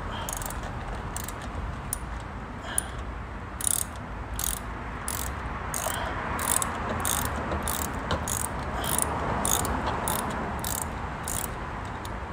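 Hand socket ratchet clicking in short runs, about one or two strokes a second and more regular after the first few seconds, as bolts on the underside of a car are worked loose by hand.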